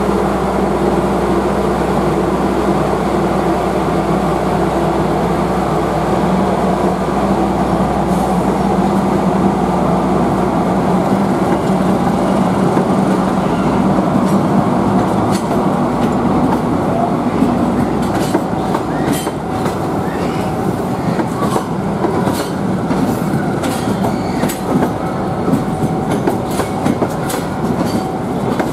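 Passenger train carriages rolling slowly past. A steady hum fills the first half, then the wheels start clicking over the rail joints, the clicks coming regularly through the second half.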